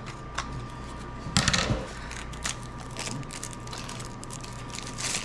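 Small clicks, taps and scrapes of a green plastic toy capsule being picked at and pried open by hand, with a louder scraping rustle about a second and a half in.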